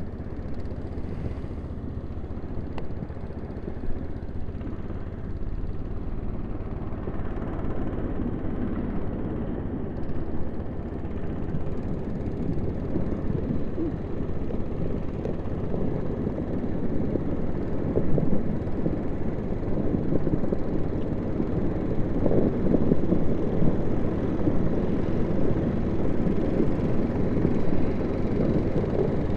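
Snowmobile engine running as the machine approaches across the snow, growing steadily louder and loudest as it passes close by near the end.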